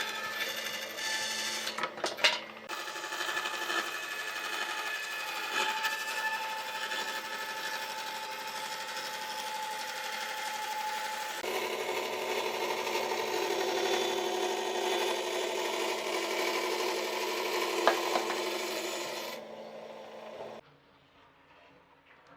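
An electric power tool running steadily as it works wood. Its tone shifts about halfway through, and it stops a couple of seconds before the end.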